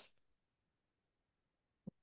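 Near silence: a pause in speech, with the last of a spoken word fading out at the start and one brief faint sound near the end.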